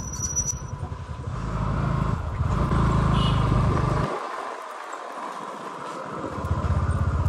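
Motor scooter running as it rides along, with wind buffeting the microphone; the low rumble drops away for about two seconds in the middle, then comes back.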